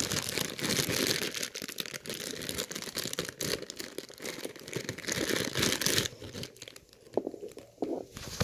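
Clear plastic packaging bag crinkling and tearing as it is handled and pulled open, a dense crackle for about six seconds, then a few scattered rustles and taps.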